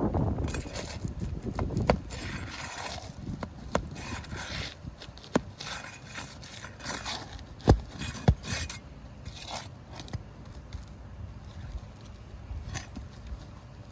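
Steel flat bar scraping and prying under asphalt 3-tab shingles to break their seals and work the nails loose, with scattered clicks and two sharp knocks about eight seconds in. Wind buffets the microphone for the first couple of seconds.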